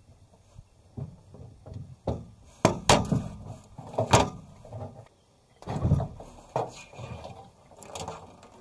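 Hard plastic knocks and clacks as a 12-volt pump is worked loose from its fittings and lifted out of a metal skid box. There are several sharp clacks a few seconds in and a duller thump about six seconds in.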